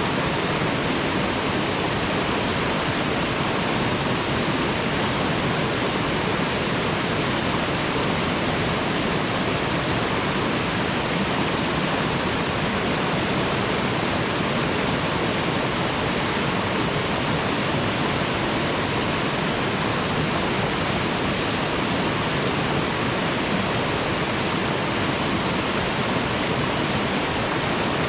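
Waterfall splashing with a steady, unbroken rush of water.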